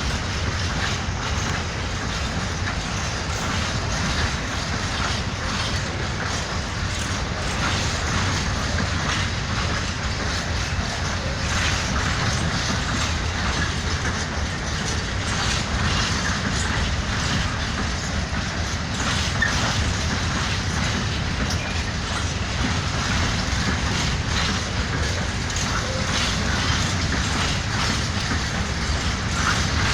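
Freight train wagons rolling past, their wheels clacking over the rail joints in a steady stream.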